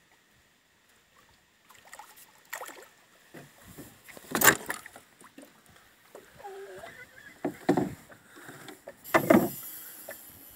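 Wooden gaff and oar handles knocking and bumping against the hull of a small plastic rowboat: scattered knocks starting a couple of seconds in, three of them loud.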